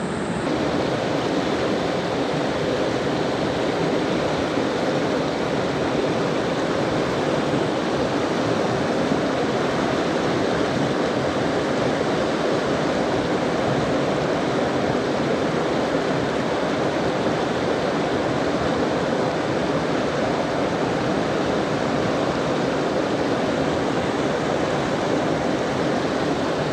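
A river's current rushing steadily, an even, unbroken sound of flowing water.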